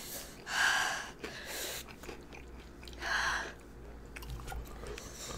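Close-miked mouth sounds of people eating fiery-hot instant noodles: chewing, with three short breaths through the mouth against the chilli burn.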